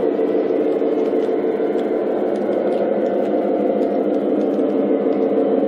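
G-scale model Santa Fe Super Chief passenger train backing slowly along the track: a steady running hum with faint light ticks from the wheels on the rails.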